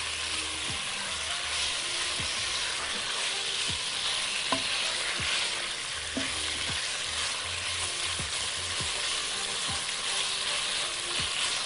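Chicken strips sizzling in hot oil in a granite-coated pot, stirred with a silicone spatula: a steady hiss with a few short scrapes and taps of the spatula against the pot. The chicken is being sautéed until it turns white.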